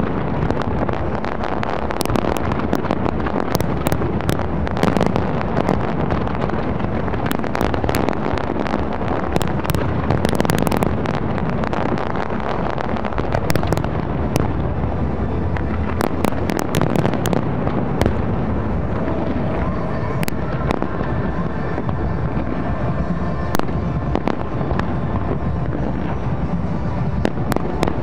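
Big fireworks display: a rapid, dense run of shell bursts, bangs and crackle over a continuous rumbling wash, thinning out somewhat in the last third.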